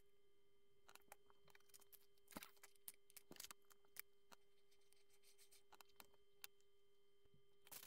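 Faint, scattered clicks and taps of Lego bricks being handled and pressed together, over a faint steady hum.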